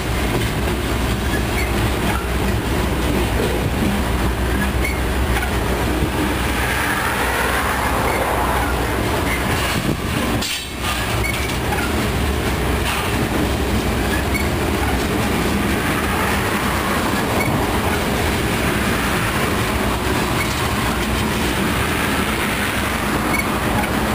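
Freight train of open-top hopper cars rolling past close by: a steady rumble and rattle of steel wheels on the rails with a rhythmic clickety-clack.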